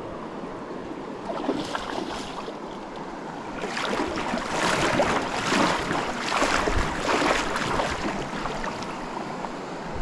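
Shallow stream water running, with a spell of splashing from about four seconds in to about eight seconds in.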